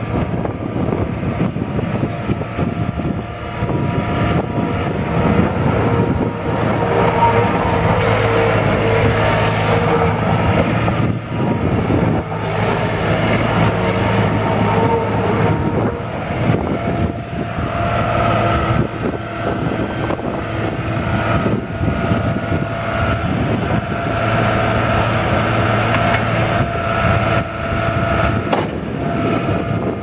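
New Holland LS180 skid steer's diesel engine running steadily while the machine drives on dirt, with a higher whine that comes and goes in the second half.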